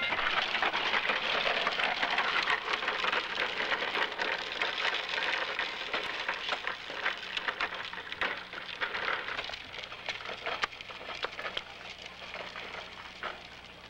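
Hard plastic wheels of a low-slung ride-on tricycle rolling over a concrete sidewalk: a continuous gritty, crackling rumble that grows fainter over the last few seconds.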